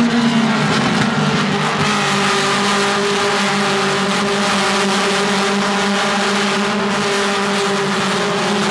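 Mazda MX-5 race cars running at speed on the circuit: a loud, steady engine drone that holds nearly the same pitch throughout.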